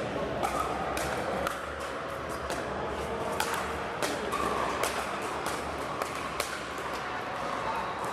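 Pickleball paddles striking the hard plastic ball: irregular sharp pops, about a dozen, from rallies on several courts, over a steady murmur of the busy indoor hall.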